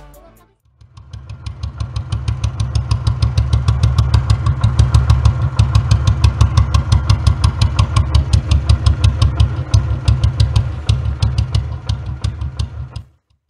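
A street cub motorcycle's single-cylinder engine running steadily, heard close to the exhaust outlet, with a fast, even exhaust beat. It grows louder over the first few seconds and stops abruptly near the end.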